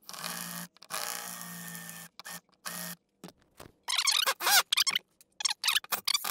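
A cordless drill motor runs in two bursts with a twist bit grinding against a screw head, then gives a couple of short blips. From about four seconds in, a Porter-Cable impact driver rattles in short stop-start bursts as its bit chatters in the screw heads to strip them out.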